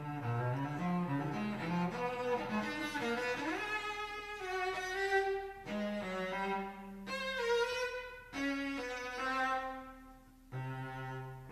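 Cello in a cello concerto playing a quick rising run of notes, then long held notes in short phrases with brief breaks between them.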